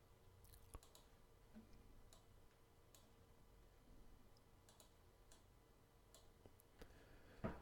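Near silence: room tone with a faint steady hum and a few faint clicks at irregular intervals.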